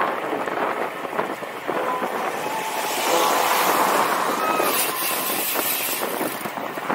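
A van drives past close alongside, its engine and tyre noise swelling about three seconds in and easing off after five, over steady wind noise on the microphone.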